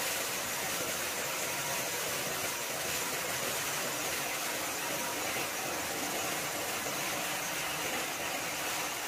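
Hand-held arc welding on a steel plate seam: a steady, even hiss from the arc with no pauses.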